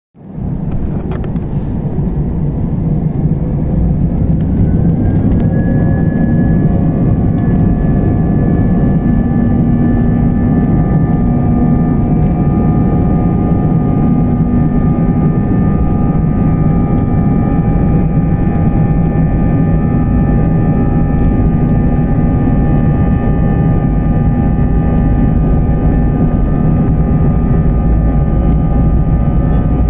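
An Airbus A321's jet engines heard from the cabin beside the wing, spooling up for takeoff: several whines glide up in pitch over the first few seconds, then hold steady as the engines run at high thrust over a deep rumble.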